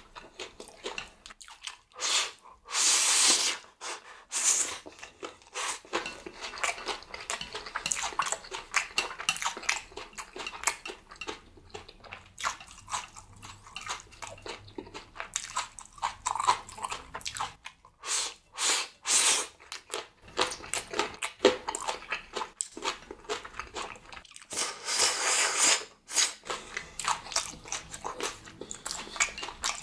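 Close-miked eating of Chapagetti black bean noodles and green onion kimchi: steady wet chewing and biting clicks, with two longer, louder stretches, one a few seconds in and one near the end.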